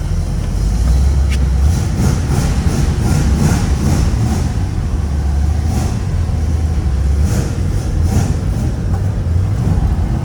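1970 Pontiac GTO's 455 Ram Air III V8 running under way on a drive, a loud low exhaust rumble whose pitch shifts about two seconds in and again about seven seconds in.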